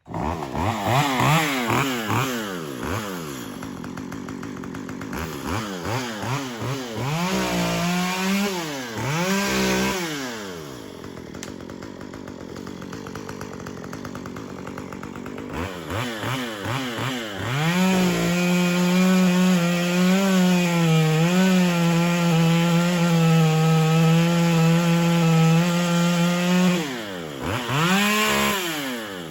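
Chainsaw revving up and down several times and dropping to idle, then held at high speed for about ten seconds with its pitch wavering as it cuts into a tree trunk, before easing off and revving again near the end.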